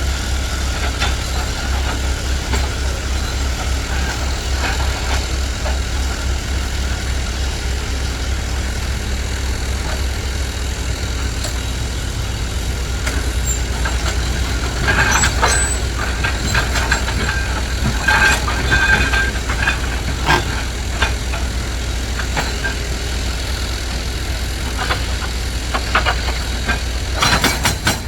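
Dump truck's diesel engine running steadily with a deep rumble, with a run of clanks and short squeals about halfway through.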